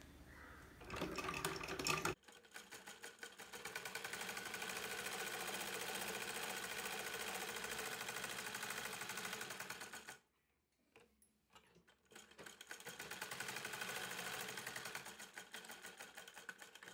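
Sewing machine stitching in two runs, each starting up and settling into a fast, even stitch rhythm, with a pause of about two seconds between them.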